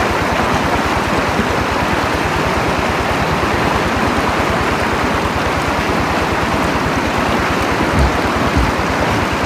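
Stream water running in a steady rush, with two dull low thumps near the end.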